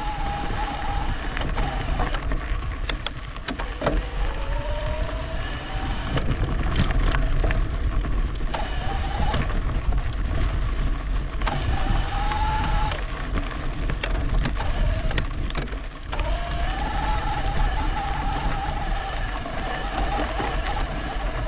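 E-bike motor whining, its pitch rising and falling with speed and cutting out now and then, over a steady rumble of wind and tyres. Sharp clicks and rattles from the bike going over bumps.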